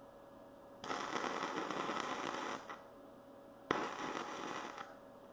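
Electric arc welder laying welds on steel bars stacked into a forging billet: two bursts of steady crackling, the first about a second in and lasting nearly two seconds, the second starting sharply a little past halfway and lasting about a second.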